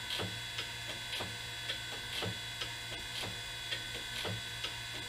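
Surface grinder running: a steady motor hum with a regular ticking, about two ticks a second, every other tick stronger.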